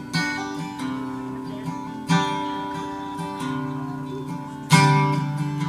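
Solo acoustic guitar playing a song's intro: strummed chords about two seconds apart, each left ringing, with lighter picked notes between.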